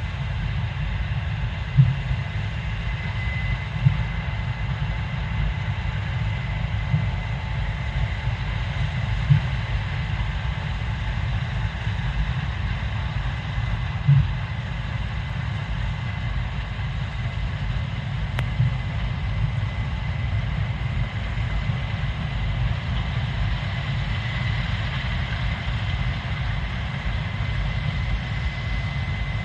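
Case IH 7230 Axial-Flow combine running while harvesting soybeans: a steady low rumble with a thin constant whine above it. A few brief thumps stand out in the first half.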